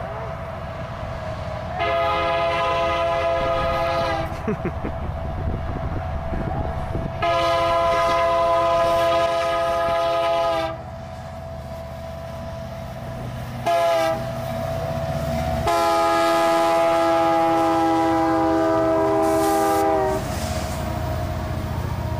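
Freight train's diesel locomotive sounding its multi-chime air horn in the grade-crossing signal: two long blasts, one short and one long, over the low rumble of the locomotive. Near the end the rumble of hopper cars rolling past continues.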